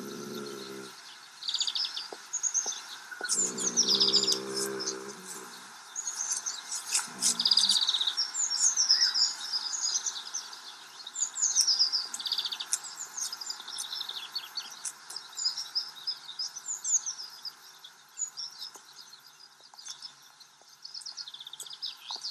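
Small songbirds chirping and singing, many short calls and quick trills overlapping throughout. Two short, low, steady-pitched tones sound in the first five seconds, the second lasting under two seconds.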